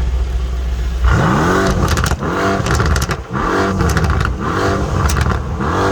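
Mercedes-AMG C63 (W205) twin-turbo 4.0-litre V8 idling, then blipped hard about five times in a row, about once a second, each rev rising and falling back.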